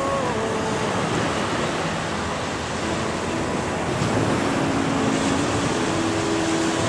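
Small waves breaking and washing up a sandy beach in a steady wash of surf, with faint held notes of a slow song underneath.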